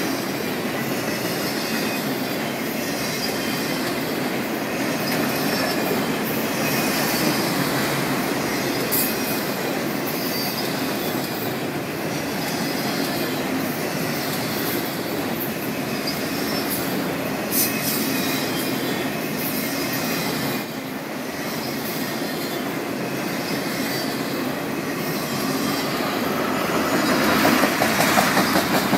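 CN freight train cars rolling past close by: a steady rumble of steel wheels on rail, with a high wheel noise that swells and fades about every second and a half. It grows louder and brighter near the end.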